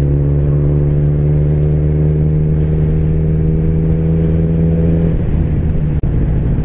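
Motorcycle engine running at a steady pitch under the rider, dropping lower and less even about five seconds in as the throttle eases.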